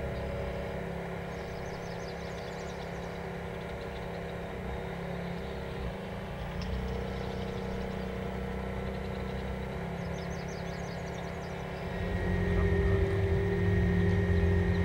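RC model container ship's motor and propeller running with a steady hum. It grows louder about twelve seconds in, when a thin whine joins it.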